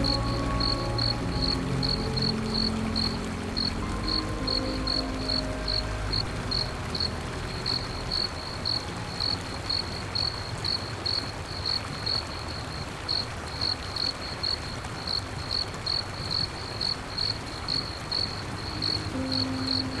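A cricket chirping steadily at night, a high chirp repeated about two to three times a second, over a soft steady hiss. Low held ambient music tones fade out in the first six seconds and come back near the end.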